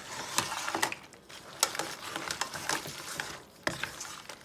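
Kitchen utensils clicking, knocking and scraping against a metal cooking pot as spaghetti with lobster and crab is stirred and tossed: a run of irregular sharp clicks, the loudest knocks about a second and a half in and near the end.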